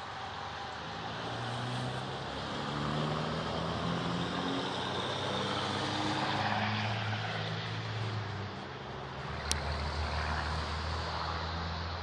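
A truck engine running as it drives, swelling in the first few seconds and holding, its pitch shifting up and down in steps. A single sharp click about nine and a half seconds in.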